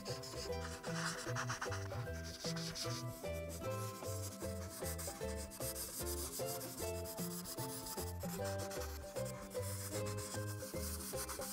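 Ohuhu art marker rubbing and scratching over paper in quick back-and-forth coloring strokes, with background music playing under it.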